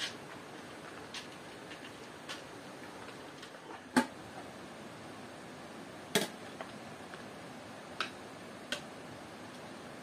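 Scattered sharp knocks and clicks at uneven intervals, roughly one every second or so, the loudest about four seconds in and again about six seconds in, over a steady background hiss.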